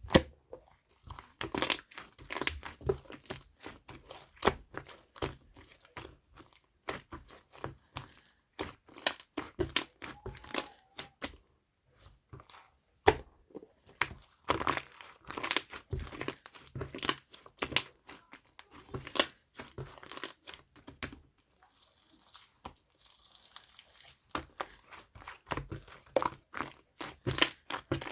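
Slime being squished and stretched by hand, giving rapid, irregular clicks and crackles, with a softer stretch a little past the middle.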